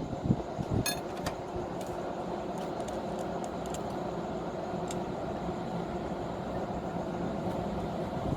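Steady mechanical hum, with a few light clicks in the first two seconds and one more near the middle.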